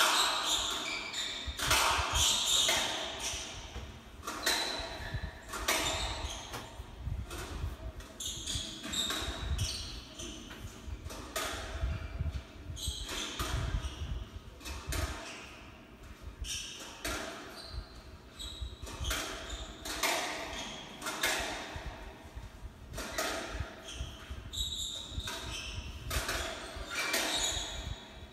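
Squash ball striking rackets and court walls during a rally, played back through a television's speaker: sharp cracks about one a second, each with a short echo of the court, over a low rumble.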